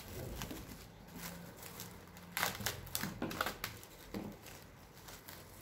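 Plastic cling film crinkling and crackling as it is stretched and pressed down over a glass bowl, with a cluster of sharp crackles about halfway through.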